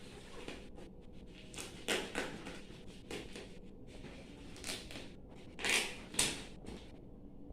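Head-torch packaging being handled and opened: a series of short rustles and scrapes, the loudest two close together near the end.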